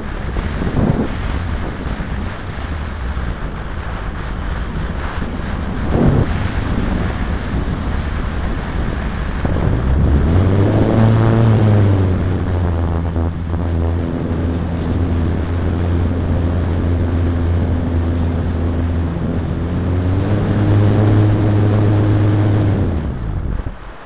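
Airflow rushing over the onboard camera of an ASW 28 model glider in flight. From about ten seconds in, a steady low drone with overtones joins it, rising in pitch as it starts and dying away just before the end.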